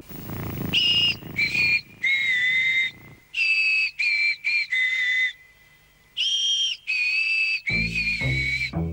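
A tune whistled in clear, steady high notes, phrase by phrase with short pauses between. Deep accompanying music notes join near the end.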